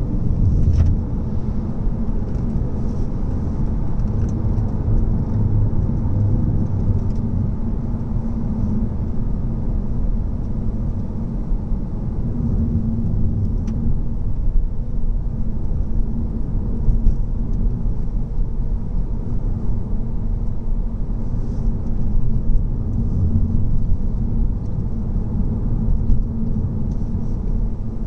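Seat Leon driving at moderate speed, heard from inside the cabin: a steady low rumble of tyres on the road and the engine.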